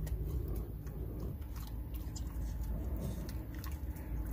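Dog chewing a small piece of dried pig ear, with irregular crunching clicks of its teeth on the hard chew over a low rumble.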